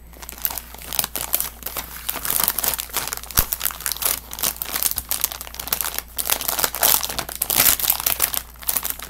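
Plastic bag of Dr Pepper cotton candy crinkling in rapid, uneven crackles as it is handled and pieces are picked out of it.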